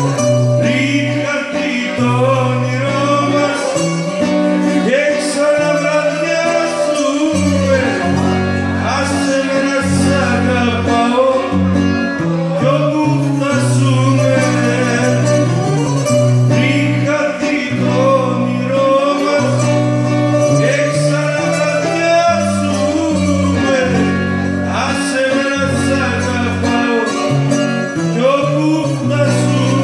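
Live Greek band playing an instrumental passage: a violin carries a gliding, ornamented melody over a strummed long-necked lute and a stepping bass line.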